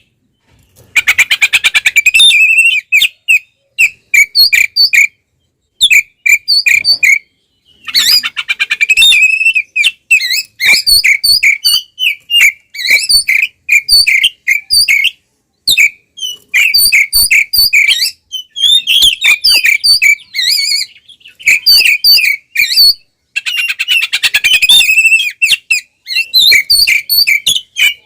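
Oriental magpie-robin (kacer) singing a loud, aggressive fighting song. Short bursts of rapid buzzy trills alternate with runs of sharp, repeated whistled notes, broken by brief pauses.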